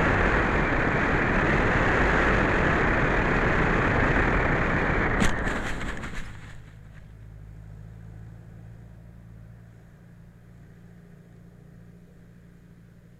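Rushing air and motor noise on a Skyhunter FPV model plane's onboard recording, cut by a sharp knock about five seconds in. The rushing then dies away within about a second and a half, leaving only a faint low hum.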